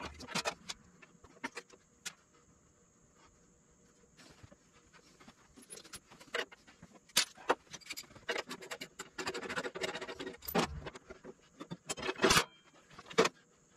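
Metal hand tools clinking and rattling as they are picked up and handled, in scattered clicks, falling quiet for about two seconds a few seconds in, then a busier run of clinks and jangling in the second half.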